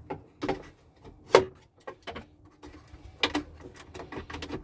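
Hands and a screwdriver working a Dodge Dakota glove box latch loose from its Phillips screws: a series of irregular sharp clicks and knocks of hard plastic and metal, the loudest about a second and a half in.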